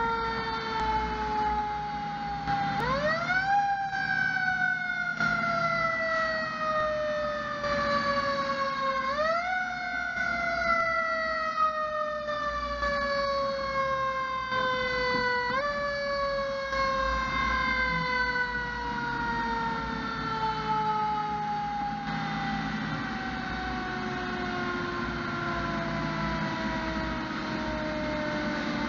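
Fire engine's siren, sounded four times: each time the pitch climbs sharply and then sinks slowly, and the last one dies away gradually. The truck's engine runs underneath.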